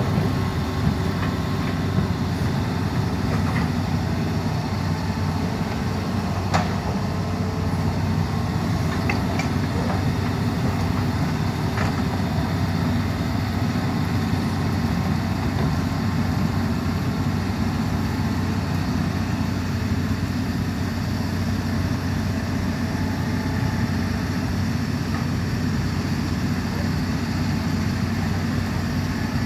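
Diesel engine of a tracked excavator carrying a hydraulic breaker, running steadily, with a few sharp knocks, one about six and a half seconds in and another about twelve seconds in.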